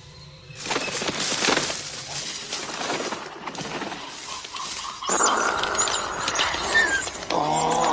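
Film sound effects of Compsognathus, small pack-hunting dinosaurs: a crackling, rustling stretch full of clicks, then from about five seconds in a dense, high chattering and squeaking of many compys at once.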